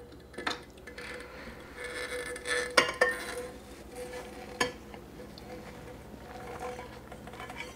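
Spatula scraping melted chocolate out of a pot into a glass bowl, with a few sharp clinks of utensil against the dishes in the middle.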